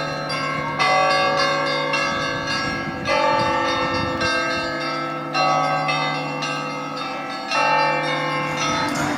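Russian church bells rung by a bell-ringer: a peal in which a group of bells is struck together about every two seconds, four times, over quicker strokes of smaller bells, each strike left ringing.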